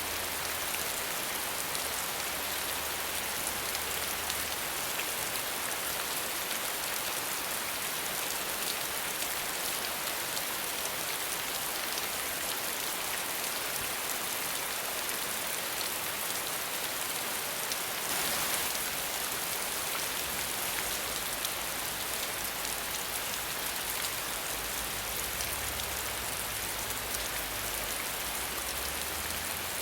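Steady rain falling, an even hiss of drops with no thunder, swelling slightly about eighteen seconds in.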